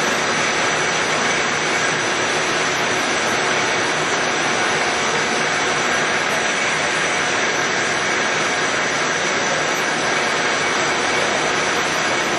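Monarch 20CM heavy-duty engine lathe running with its spindle at 600 RPM, its top speed: a steady whir of the headstock gearing and drive, with faint steady whines over it.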